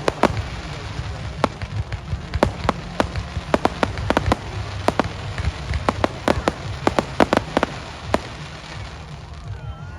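Fireworks display: dozens of sharp crackling pops in rapid, irregular clusters over a low rumble of booms, thinning out near the end.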